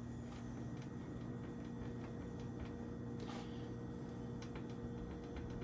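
Light ticks and a brief scuff about three seconds in as the plastic alarm unit is handled and pressed onto the wood to stick it on, over a low steady hum.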